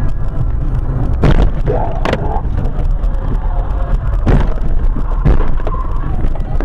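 Steady low rumble of a car driving, with four sharp knocks or thumps: about a second in, at two seconds, and twice more later on.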